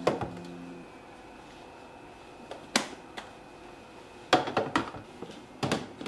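Plastic food storage containers set down and slid onto refrigerator shelves: a few sharp clicks and knocks, one about three seconds in, a quick cluster about four and a half seconds in and another near the end.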